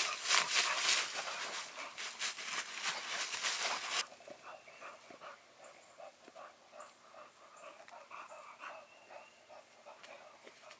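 Old English Bulldog bitch in labour panting hard, loud and close for about four seconds, then stopping suddenly and going on as quieter, quick, even panting. Heavy panting is typical of a whelping dog.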